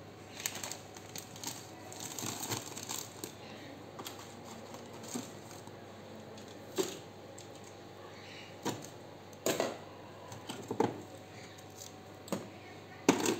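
Plastic food packets and tubs handled on refrigerator shelves: wrappers crinkling, with scattered light knocks and clicks as containers are picked up and set down.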